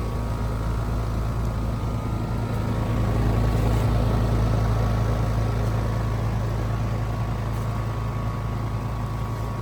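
2016 Trane XR14 4-ton heat pump outdoor unit running through its defrost cycle: a steady compressor hum with a rushing noise over it, growing a little louder about three seconds in.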